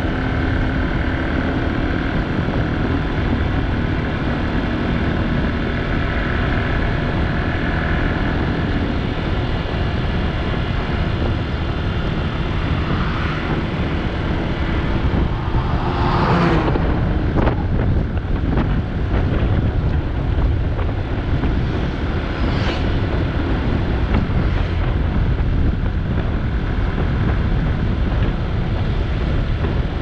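Motorcycle riding at speed on a highway: steady engine and wind rush on the microphone. About halfway through, an oncoming cement mixer truck passes in a brief loud whoosh, and a few seconds later another shorter rush goes by.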